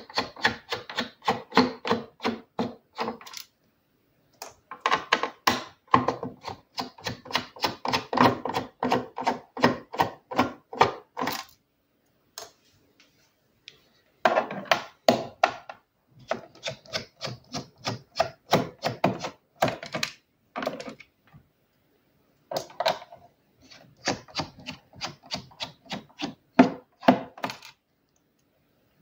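Screwdriver backing screws out of a keyboard case: fast clicking and creaking, about four or five clicks a second, in several runs of a few seconds each with short pauses between screws.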